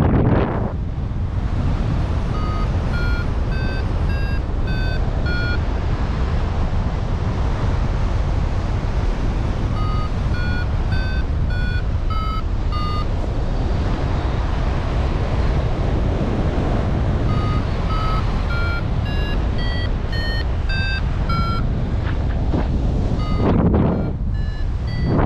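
Paragliding variometer beeping in three runs of short beeps, about two a second, each beep a little higher or lower than the last; in the third run the pitch climbs and then falls back. Such beeping signals the glider climbing in lift. Heavy wind rush on the microphone runs underneath, swelling in gusts at the start and near the end.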